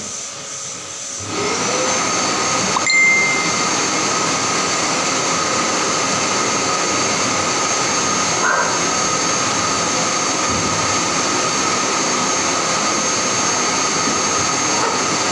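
An electric blower motor, such as a grooming dryer or vacuum, spins up about a second in and then runs steadily with a rushing sound and a high whine.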